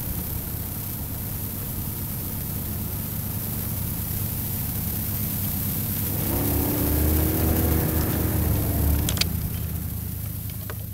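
Boat motor running steadily. A higher whine swells in from about six seconds and fades near nine seconds, and there is a sharp click near nine seconds.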